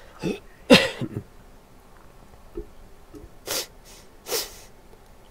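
A person sneezes: a sudden loud burst with a falling vocal tone about three quarters of a second in. Two shorter, breathy bursts through the nose follow a few seconds later.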